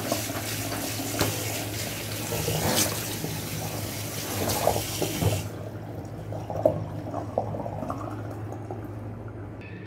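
Kitchen tap running into a sink as peanuts are rinsed in a plastic colander under cold water. The water cuts off suddenly about halfway through, leaving a few light knocks and rattles of the colander and nuts being handled.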